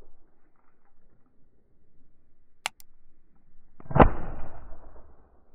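One shotgun shot about four seconds in, dying away over about a second. A single sharp click comes a little over a second before it, over faint rustling.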